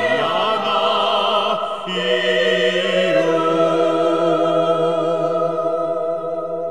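Closing bars of a song: a sung vocal with vibrato over orchestral accompaniment, ending on a long held chord that stays steady through the last seconds.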